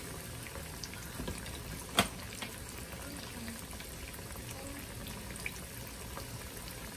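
Rockfish pieces frying in a pan of hot oil: a steady sizzle with scattered small crackles, and one sharp click about two seconds in.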